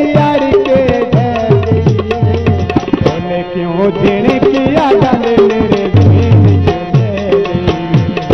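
Music: an instrumental passage of a Saraiki mahiya folk song, a hand drum playing repeated falling bass strokes under a bending melody line.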